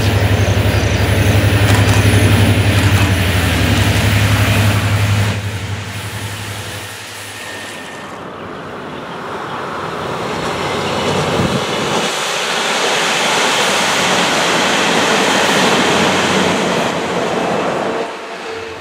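Diesel locomotive running loudly with a strong low drone as it hauls passenger coaches past. After about five seconds the sound changes to a second passenger train approaching, growing from faint to a steady loud rumble of wheels on the track as it passes close, before cutting off sharply near the end.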